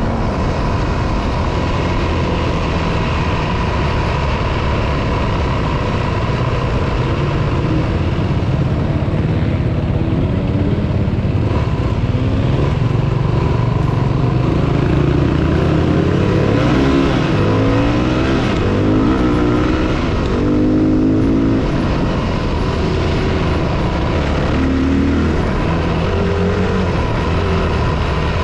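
Single-cylinder four-stroke dirt bike engine running close up while riding, its revs rising and falling repeatedly through the middle of the stretch as the rider works the throttle and gears.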